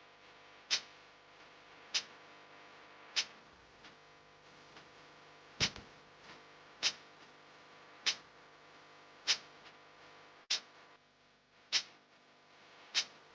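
Sharp single clicks repeating at an even pace, about one every 1.2 seconds, with one beat missed about four seconds in, over a faint steady hum.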